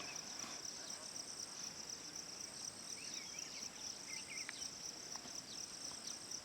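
Steady, high insect chorus, with a few faint short chirps scattered through it.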